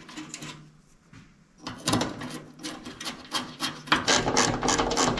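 Rapid rasping, scraping strokes, several a second, as the new fuel pump assembly is tightened down with a hand tool. They start about a second and a half in and grow louder about four seconds in.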